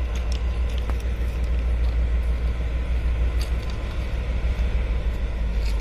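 Diesel locomotive engine running steadily, a deep low rumble, with a few faint clicks on top.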